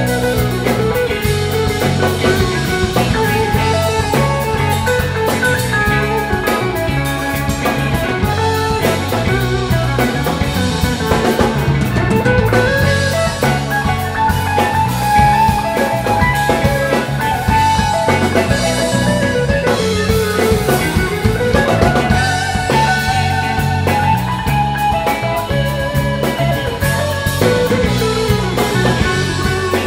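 A four-piece rock band playing live: two electric guitars over electric bass and a drum kit, in a steady psychedelic rock groove.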